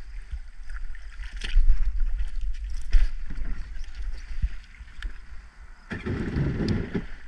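Wind rumbling on the microphone over a jet ski on the water, with scattered knocks and splashes. About six seconds in, the Yamaha Wave Venture 1100's cold engine sputters roughly for about a second; the rider blames it on not warming the engine up first.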